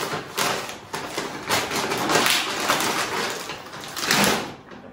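Wet cleaning wipe rubbed back and forth across a tabletop, a series of short swishing strokes.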